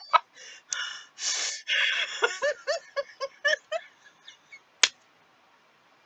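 Women laughing helplessly: breathy, gasping bursts, then a quick run of short 'ha-ha-ha' laughs about two seconds in. A single sharp click near five seconds in.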